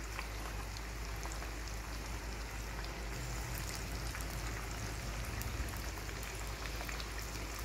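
Batter-coated chicken pieces deep-frying in hot oil: a steady sizzle dotted with many tiny pops.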